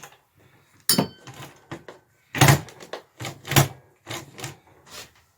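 A run of irregular knocks and clunks from handling tools and mini bike parts on a workbench, the loudest about two and a half seconds in. One knock about a second in has a brief metallic ring.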